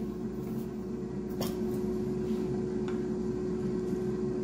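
Steady hum with one constant tone, from a Cosori air fryer's fan running as it preheats, with a few faint brief taps over it.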